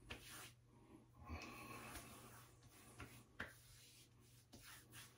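Faint soft pats and rubbing of hands on a wet face as aftershave splash is applied after a shave, with a few light taps; otherwise near silence.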